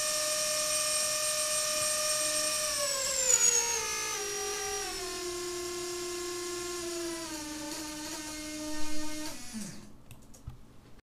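A single Racerstar 2205 2300KV brushless drone motor spinning in the Betaflight motor test: a steady whine that steps down in pitch a few seconds in as its throttle is lowered, holds at the lower pitch, then winds down and stops near the end, with two brief louder swells on the way. The owner says these four-month-old motors have become noisy and vibrate at around half throttle.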